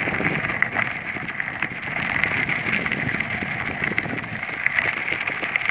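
Bicycle ride heard on a handheld phone: wind on the microphone and riding noise, with a steady high hiss and many small clicks and rattles.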